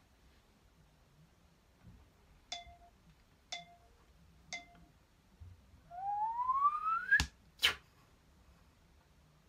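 Homemade sound effects: three short ringing clinks about a second apart, then a tone rising steadily in pitch for about a second that ends in two sharp knocks half a second apart.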